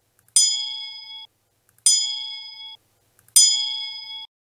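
A bell-like chime sound effect strikes three times, evenly spaced about a second and a half apart. Each ding rings for just under a second, fading slightly, then cuts off sharply.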